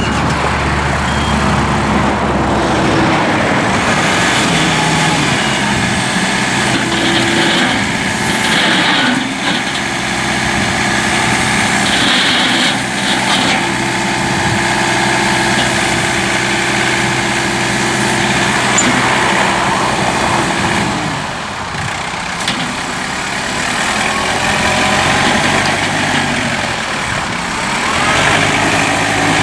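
John Deere 4052R tractor's diesel engine running, its pitch and level dipping about three-quarters of the way through and then climbing again.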